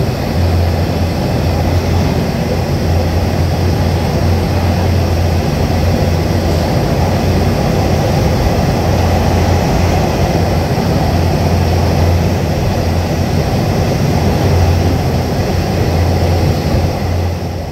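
Diesel locomotive engines running at a depot, a steady low rumble that wavers slightly in strength.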